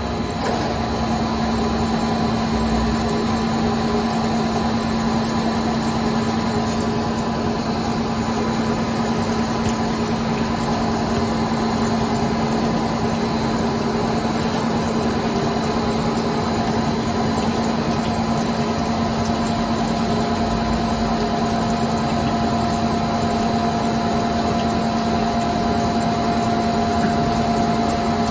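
ALDOOSANLE CNC lathe turning a bar with coolant spraying: a steady machine hum under the hiss of the coolant spray. A higher, steady whine joins about two-thirds of the way through.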